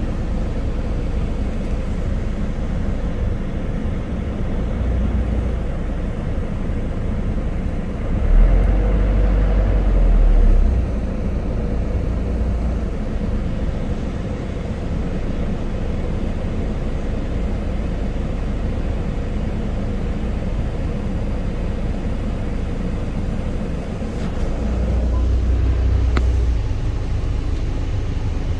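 Isuzu Elf crane truck's engine running steadily, with two surges of deeper, louder rumble of about two seconds each, one about eight seconds in and one near the end.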